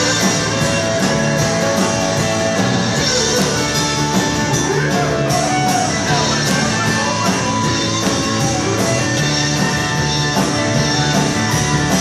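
Live band playing music with a steady beat.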